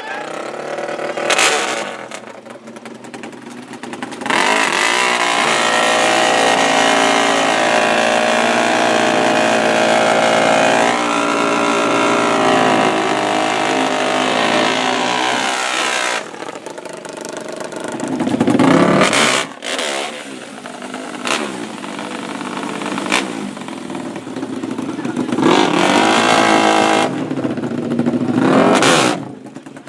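Racing ATV engines revving hard: one is held loud at high revs for about twelve seconds, its pitch shifting partway through, followed by several shorter revs.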